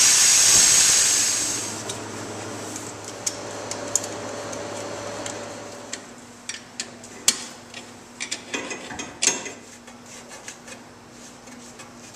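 A corded handheld power tool running with a high hiss, winding down and stopping in the first two seconds. Then come scattered sharp clicks and knocks of pipe fittings and clamps being handled and tightened, clustered a little after the middle.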